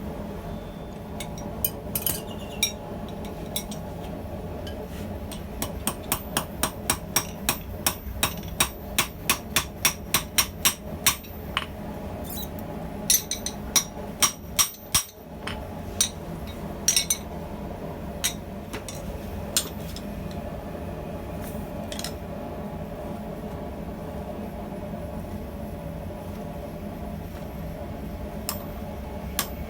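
Hammer blows on steel at the anvil while forging tongs: a quick, even run of strikes, about two to three a second, then a few scattered blows, over a steady background hum.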